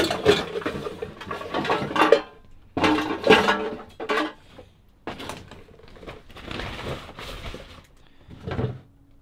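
Junk being dug through by gloved hands: cans, plastic jugs, cardboard and metal bits clattering, knocking and scraping as they are shifted, in an irregular run of clanks that dies down near the end.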